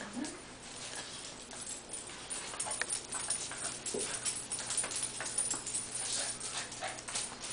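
A Basenji and a Cavalier King Charles spaniel play-wrestling on a tile floor: scuffling and claws clicking on the tiles, with a few short whines.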